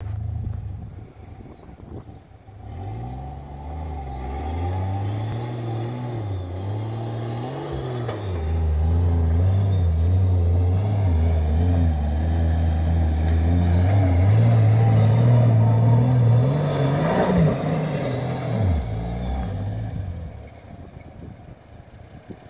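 Turbocharged Nissan TB42 petrol straight-six in a 4x4 truck revving hard through skids on dirt, its pitch rising and falling several times. A high turbo whistle rises and falls over the loudest stretch, and the engine drops back to a lower level near the end.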